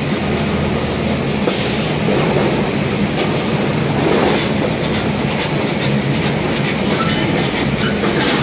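Spray-foam insulation rig running with a steady mechanical hum, with the hiss of the foam spray gun as polyurethane foam is sprayed onto the underside of a steel container. A run of quick ticks comes in the second half.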